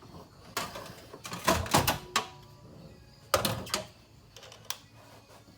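Clunks and clatter of a replacement radiator cooling fan assembly being knocked and worked into its mounting slot, in two louder bursts about a second and a half and three and a half seconds in.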